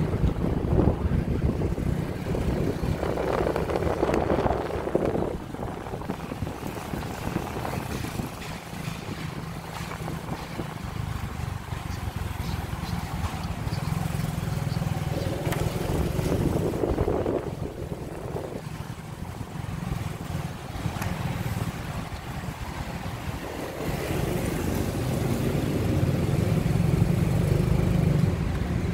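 Motorcycle engine running while riding in slow city traffic, with road noise and other vehicles around it; the sound swells twice, about 4 seconds in and again around 16 seconds.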